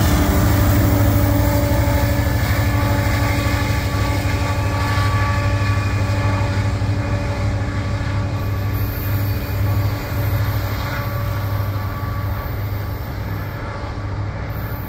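BNSF diesel-electric freight locomotives, an ES44AC among them, running past and pulling away. Their engines make a steady low drone that fades gradually as they move off down the track.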